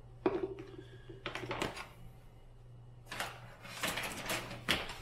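Handling of plastic supplement containers on a cabinet shelf: several short knocks and clatters as tubs and bottles are picked up and set down, over a steady low hum.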